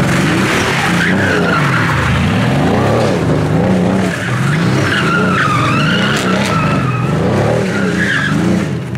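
Mercedes-AMG GT's twin-turbo V8 revving up and down about once a second as the car spins donuts, its rear tyres squealing with a wavering pitch.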